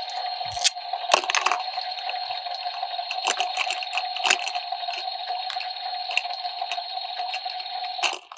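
Electronic toy's small speaker playing a steady hissing, watery sound effect with a fixed tone in it, while plastic toy pieces click lightly now and then; the effect cuts off shortly before the end.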